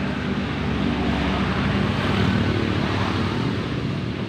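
A motor vehicle's engine passes close by, its steady hum growing louder to a peak a couple of seconds in and then easing off, over a wash of road noise.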